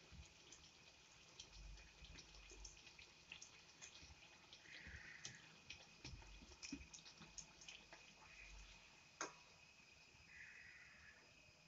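Hot oil faintly crackling and popping as a ney pathiri deep-fries in a steel pan, with many small irregular ticks. One sharper click about nine seconds in, as the slotted steel spoon meets the pan to lift the bread out.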